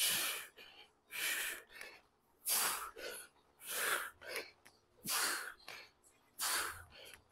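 A man breathing hard in short, forceful puffs, about six in all, one every second and a quarter or so, in time with the reps of a set of parallel-bar dips.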